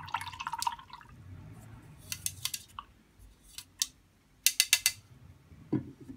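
Paintbrush rinsed in a plastic cup of water to wash off gouache paint, clicking and tapping against the cup in short clusters, the last a quick run of about five taps. Near the end the cup is set down with a dull knock.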